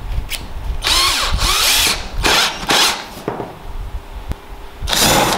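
Cordless drill run in about five short trigger bursts, its motor speeding up and dying away each time, spinning a homemade bit of three wood screws bound with cable ties.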